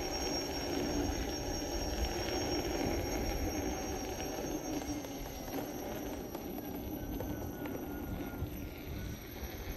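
KingSong 16S electric unicycle on a test ride after a puncture repair: a steady hub-motor hum and tyre noise over low wind rumble. A faint high squeal glides slightly down about three quarters of the way in.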